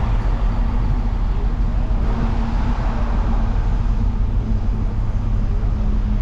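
Steady road traffic and heavy construction-machinery engines, a continuous low rumble with a faint engine hum in the middle.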